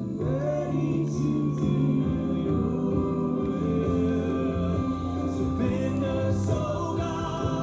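Background music: a choir singing over held chords.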